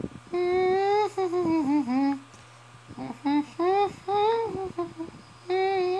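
A person humming a wordless tune in held notes with pitch glides between them, in three phrases separated by short pauses.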